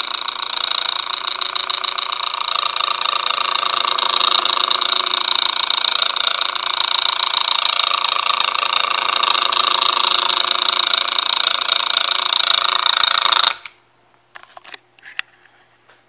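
Refurbished General Electric strap fan's motor running with its blade off, making a loud, steady, fast rattling noise. It cuts off suddenly about 13 seconds in, followed by a few light clicks.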